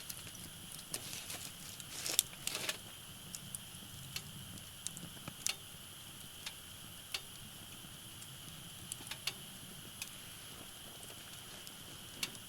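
Wood fire crackling: irregular sharp pops and snaps, a quick cluster about two seconds in, then scattered single pops.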